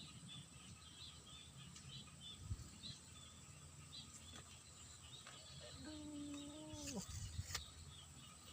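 Faint outdoor ambience with small birds chirping over and over in short high notes. About six seconds in comes one held low hum, about a second long, that drops in pitch as it stops.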